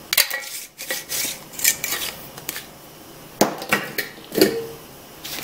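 Scattered clicks and knocks of spice jars being handled on a countertop: jars set down, lids opened and closed.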